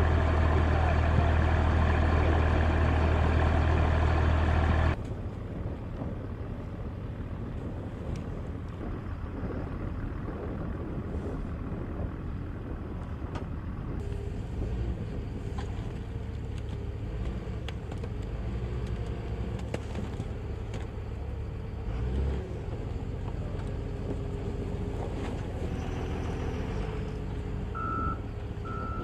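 A loud, steady heavy-engine drone with a deep hum cuts off abruptly about five seconds in, giving way to quieter rumbling from engines and vehicles. Near the end a vehicle's reversing alarm starts beeping at a steady pace, just over one beep a second.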